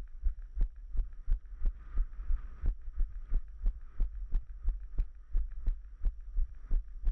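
Muffled thuds of a runner's footfalls on a dirt trail, about three a second, jolting the body-worn camera.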